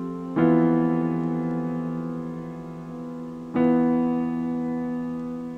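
Background music of slow sustained chords, two struck about three seconds apart, each left to ring and fade.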